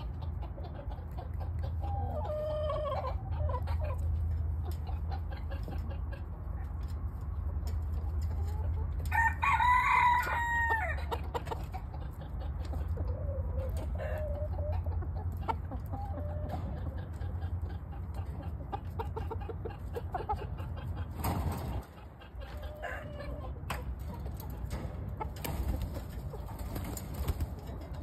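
Chickens clucking, with one loud rooster crow about ten seconds in, over a steady low hum.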